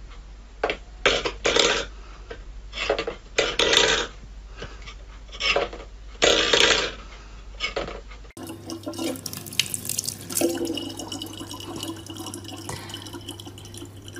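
Steel pet bowl knocked and scraped by a cat's paw on a wooden floor, clattering in about a dozen irregular bursts. From about eight seconds in, a thin stream of tap water trickles from a faucet into a plastic bottle.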